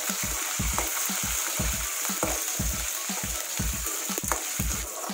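Oil sizzling as green chillies, curry leaves, peanuts and dals fry in an aluminium kadai for a tempering, with a perforated metal spatula stirring and now and then clinking against the pan. A regular low pulse, about three a second, runs underneath.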